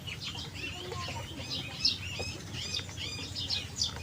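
Small birds chirping in quick, repeated short calls, with one light click about two seconds in.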